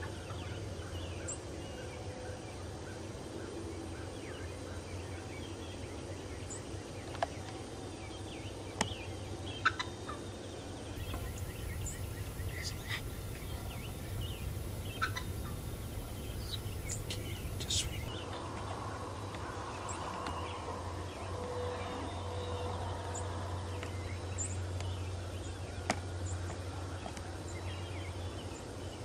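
Wild turkeys gobbling and calling in short, scattered bursts, with a few sharp clicks about a quarter to a third of the way in.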